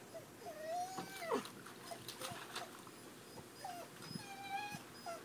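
Golden retriever whining: a series of drawn-out, high whines, one sliding down in pitch just after a second in, with a few short clicks in between.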